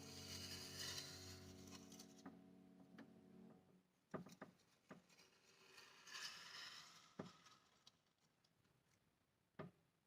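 Faint ringing of a prepared piano's strings dying away over the first few seconds, then near silence broken by faint rustling and a few soft knocks.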